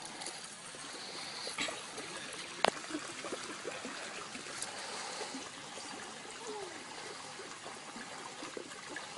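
Steady outdoor background hiss, with one sharp click about two and a half seconds in.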